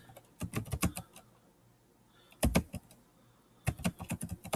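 Typing on a computer keyboard: three short runs of keystrokes with brief pauses between them.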